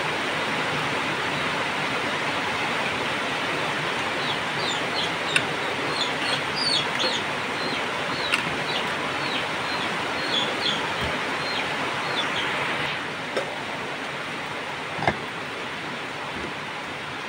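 Pot of soup boiling hard with a steady bubbling hiss that eases about two-thirds of the way through. Over it, birds chirp in quick short calls through the middle stretch, and a metal ladle knocks against the pot a few times.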